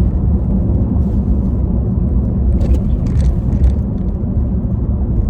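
Steady low road rumble inside a moving car's cabin, with a few brief hissy sounds a little past halfway.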